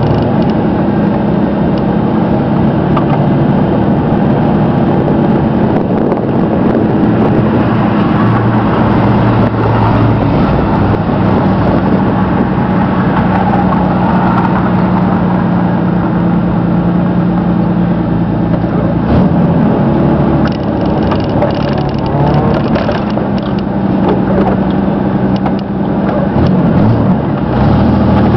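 1992 Chevrolet S-10's 2.8-litre V6 running at low speed, heard inside the cab as a steady engine hum while the truck manoeuvres. Near the end the revs rise as it pulls away.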